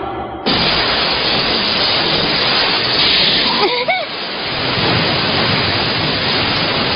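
A loud, steady rushing noise from a cartoon sound effect, starting suddenly about half a second in, with a short rising-and-falling voice cry about four seconds in.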